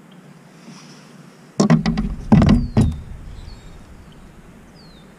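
A burst of thuds and knocks on a kayak, several hits over about a second and a half, starting about a second and a half in.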